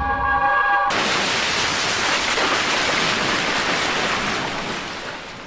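A held musical chord cuts off about a second in. It gives way to ocean surf: waves breaking in a steady rush that eases a little near the end.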